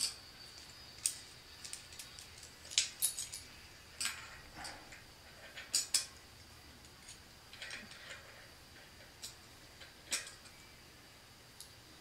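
Loose steel sprockets and spacers of a Shimano XT 10-speed cassette clinking against each other as they are handled and slid onto the freehub body: irregular light metallic clicks and jingles, some in quick clusters.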